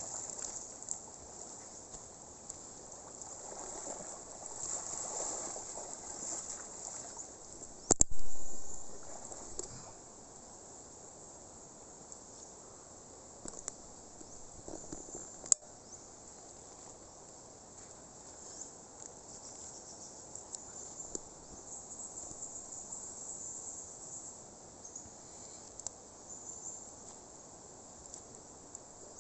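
A steady chorus of forest insects, with faint water sounds from the river. A single sharp knock stands out about eight seconds in, and a smaller click comes a little later.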